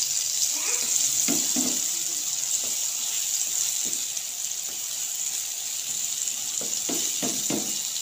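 Spice-coated eggplant slices shallow-frying in oil in a pan, with a steady sizzle. A few short knocks of a spatula turning the slices come a little over a second in and again near the end.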